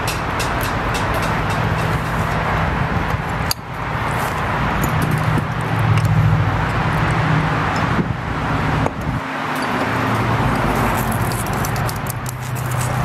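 Steady road traffic noise, with a vehicle engine hum that swells about six seconds in and dips for a moment a little after nine seconds. A few light clicks of a metal spoon against a glass bowl come near the start and near the end.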